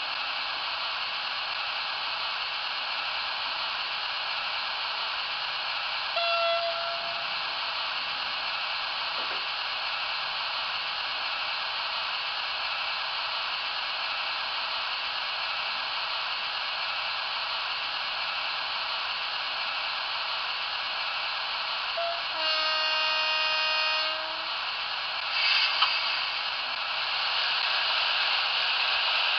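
Sound-equipped model of a Renfe series 251 electric locomotive standing still, its speaker giving a steady hiss. It sounds a short horn toot about six seconds in and a longer horn blast of about two seconds near the end, followed by a brief burst of hiss, and the hiss grows louder as its headlights come on.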